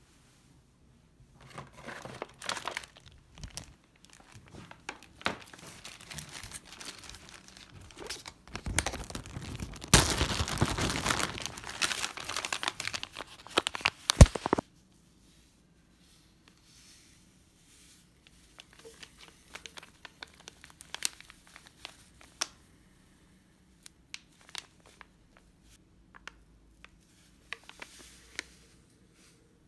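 Plastic and foil packaging crinkling and rustling as it is handled, dense and fairly loud for the first half with a sharp click about fourteen seconds in. After that come sparser, quieter crinkles of a foil drink-powder sachet.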